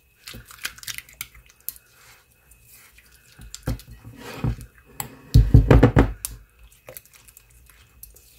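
Spatula stirring a thick mayonnaise-style dressing in a bowl: wet squelching and scraping, loudest in a few bouts around the middle.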